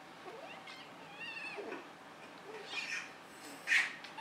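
Kittens play-fighting: a high, wavering mew about a second in, then two short noisy bursts, the louder one near the end.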